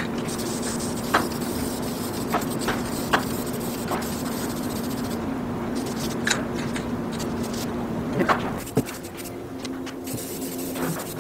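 Aerosol spray can of white paint hissing as paint is sprayed onto a plastic helmet shell, with a few light clicks and a steady low hum underneath.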